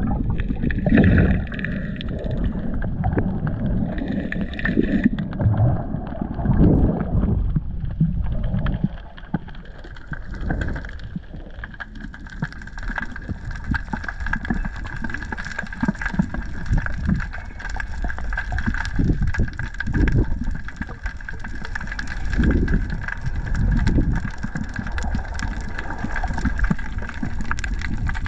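Underwater sound through an action camera's waterproof housing: muffled, uneven low rumbling and sloshing of water moving past as the diver swims, with a thin steady whine running through it, plainest in the second half.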